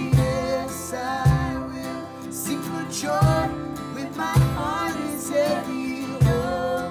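Worship song: a voice singing over strummed acoustic guitar, with strong low notes about once a second.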